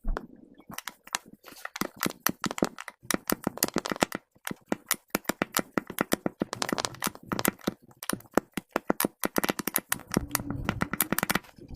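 Kinetic sand being worked by hand: a dense run of quick crackles and crunches.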